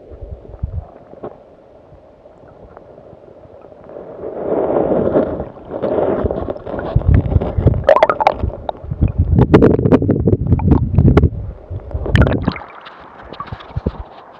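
Water sloshing and gurgling around a submerged camera as a rainbow trout is released, quiet at first, then loud irregular churning and splashing with sharp knocks from about four seconds in. Near the end it cuts off suddenly as the camera leaves the water, leaving the steady rush of the river.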